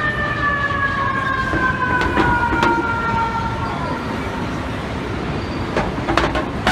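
Fire truck siren falling slowly in pitch over about four seconds and fading, over city traffic noise, with a few sharp clicks or knocks in the middle and near the end.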